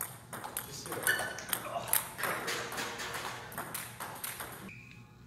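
Table tennis rally: the ball clicking sharply off the paddles and the JOOLA table in quick, irregular succession, stopping shortly before the end.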